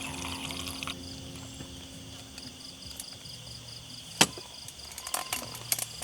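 Insects chirping steadily in a fast pulsing trill. Pouring water stops about a second in, and a sharp knock about four seconds in is followed by several light clicks.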